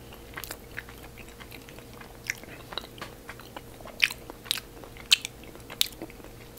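Close-up mouth sounds of a man chewing a Lindor chocolate truffle: irregular wet clicks and smacks, with a few louder ones in the second half.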